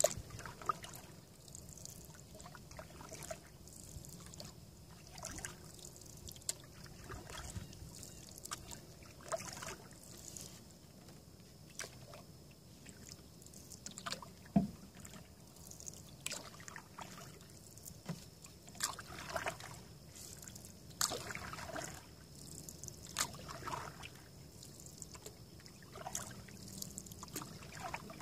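Canoe paddle strokes on calm water: a short splash and drip from the paddle about every two seconds, with water trickling between strokes.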